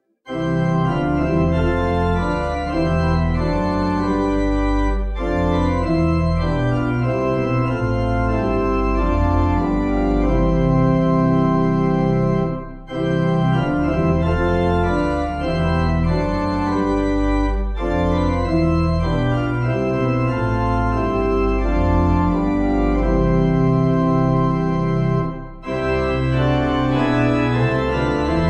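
Background organ music playing slow, held chords, which twice briefly drop away.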